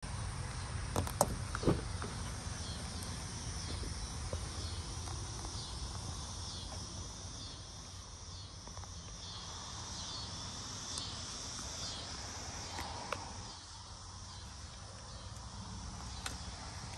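Insects chirping outdoors in a steady, pulsing chorus. A few sharp clicks come about a second in, as the car's door latch is worked and the door opened, with another click later on and low handling rumble underneath.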